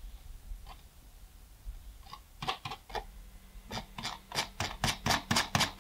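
Typing on a computer keyboard: a few scattered key clicks about two seconds in, then a quicker, irregular run of clicks over the last two seconds.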